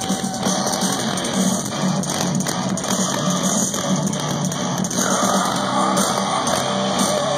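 Live rock band playing over a concert PA, heard from within the crowd. A held note rings early on, and a higher line comes in about five seconds in.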